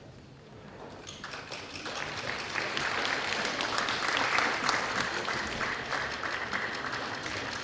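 Concert-hall audience applauding, the clapping starting about a second in and swelling to a steady level.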